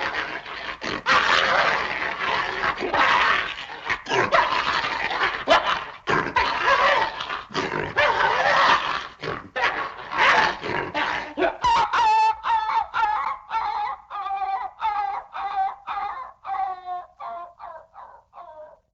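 A dog attacking: dense, rough snarling and aggressive barking for about eleven seconds, then it breaks into a string of pitched yelping cries, about two a second, that fall in pitch and grow fainter until they stop.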